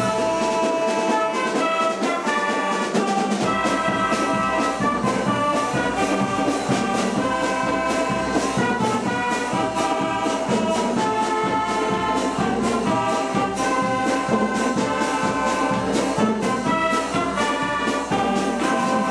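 A Schalmei band, its multi-bell Martin trumpets held upright, playing a tune in full chords, its notes held and changing every second or so.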